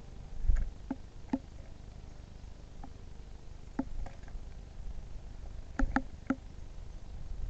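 Eurasian nuthatch tapping and pecking at a bird feeder: irregular sharp knocks, sometimes two or three in quick succession, over a low rumble.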